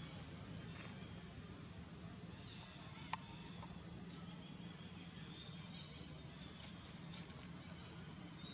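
Faint outdoor ambience with a few short, high-pitched bird chirps, the loudest near the end, and one sharp click about three seconds in.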